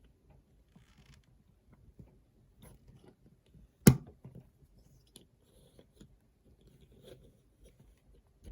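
Small plastic clicks and faint handling rustles from a Lego minifigure being handled, with one sharp click about four seconds in.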